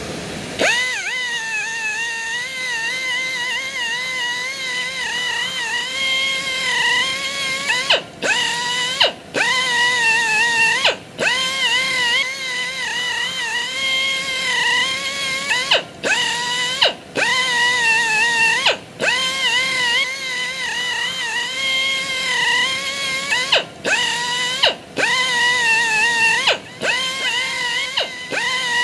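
Mini angle grinder giving a shrill, squealing whine that wavers in pitch. It cuts out for a moment about ten times and sweeps back up to pitch at each restart.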